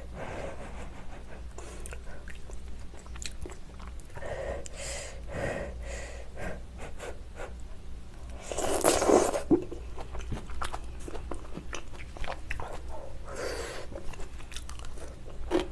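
Close-miked chewing of hot, soup-soaked malatang: soft wet mouth clicks and smacks throughout, with a louder slurp of a big bite about eight and a half seconds in.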